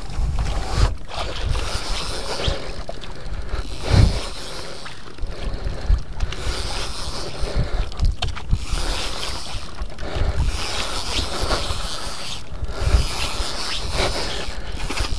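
Water Killer conventional fishing reel being cranked to wind in line, a steady mechanical whirring, with low wind buffeting on the microphone.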